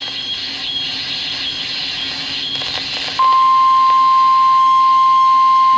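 Weather radio hissing with static, then a little past halfway the NOAA Weather Radio 1050 Hz warning alarm tone comes on suddenly, a single steady tone much louder than the hiss. The tone signals that a warning broadcast, here a severe thunderstorm warning, is about to follow.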